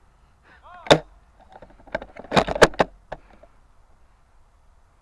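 Airsoft sniper rifle: one sharp shot about a second in, then a quick cluster of clicks and knocks from the rifle being handled and the bolt being worked, with a last single click.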